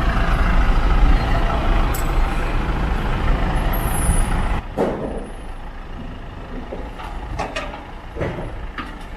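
Truck engine running with a strong low rumble that drops away sharply about halfway through. A few short, sharp clicks and squeaks follow.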